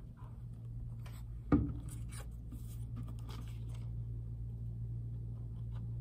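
Paper craft pieces and a popsicle stick handled on a tabletop: rustling and light taps, with one sharp knock about a second and a half in, over a steady low hum.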